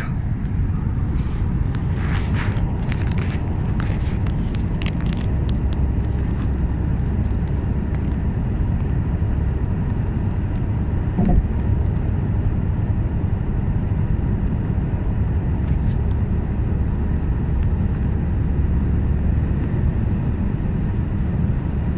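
Steady low road and engine rumble heard inside a moving car's cabin at highway speed. A few light clicks sound in the first several seconds, and a single thump comes about eleven seconds in.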